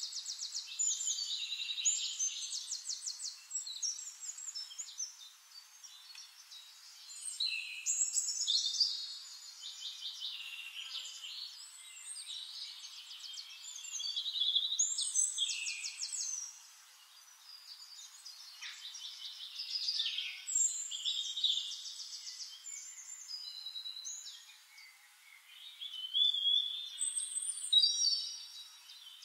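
Songbirds singing in a forest, phrase after phrase of high, fast trills and warbles with short lulls between them.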